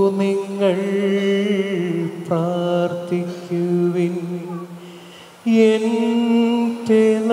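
Slow communion hymn sung in long held notes, with a break about five seconds in before the next phrase starts.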